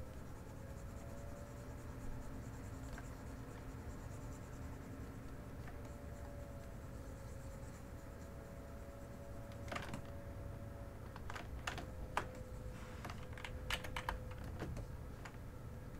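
Computer keyboard keys and mouse buttons clicking: a few scattered single clicks, then a cluster in the last third, over a faint steady hum.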